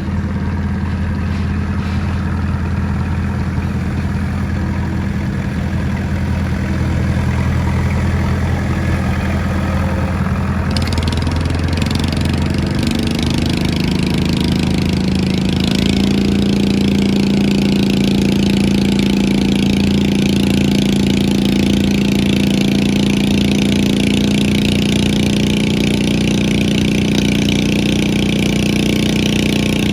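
Pulling lawn mower engine running at a steady idle, then revving up about eleven seconds in and holding at a higher, louder speed.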